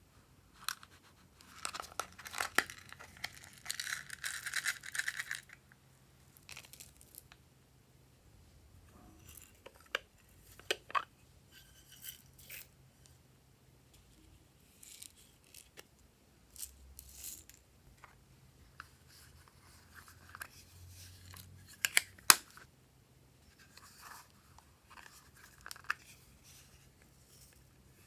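Glossy slime being stretched and mixed by hand. There is a dense sticky crackling and tearing for a few seconds near the start, then scattered sharp clicks and pops.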